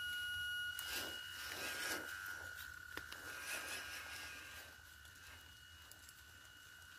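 Small electric motor of a WPL C24-1 RC pickup whining at a steady high pitch as the truck crawls up a dirt bank, with crunching from the tyres over dirt and leaves in the first couple of seconds. The sound grows fainter as the truck moves away.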